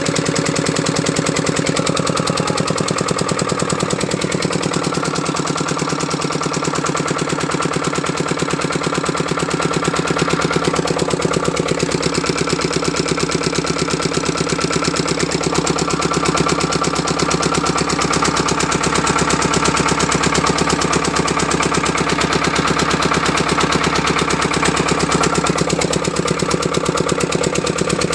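Small 5 hp single-cylinder engine driving a 4 kVA generator, running steadily at a constant speed with a rapid, even beat.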